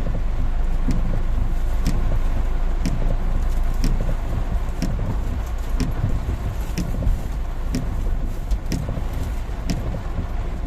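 Car driving, with a steady low engine and road rumble and a short sharp tick about once a second.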